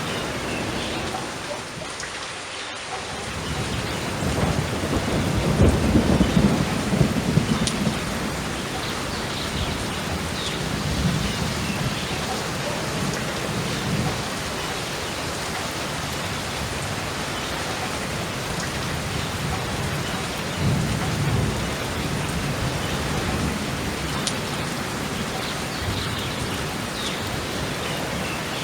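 Steady rain with rolling thunder. A low rumble swells about four seconds in and is loudest over the next few seconds, and a fainter rumble rolls in about two-thirds of the way through.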